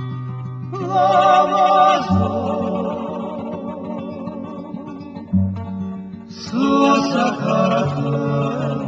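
Background music: a song with a voice singing two phrases, about a second in and again near the end, over guitar and steady bass notes.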